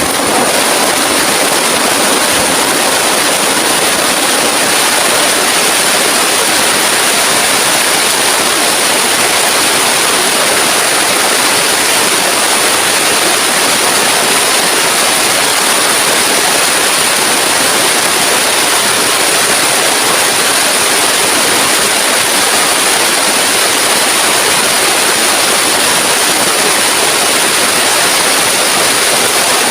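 Heavy rain falling in a steady, loud downpour, a constant hiss without a break.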